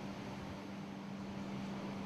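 Faint steady hum with an even low hiss and no distinct events: background room tone.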